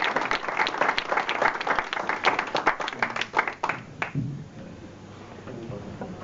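Audience applauding: dense clapping that thins out and dies away about four seconds in.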